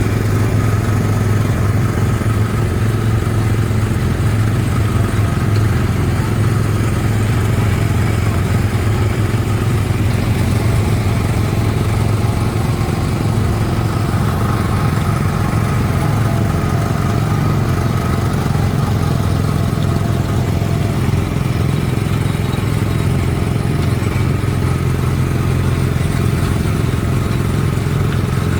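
A steady low engine-like drone that holds at an even level throughout.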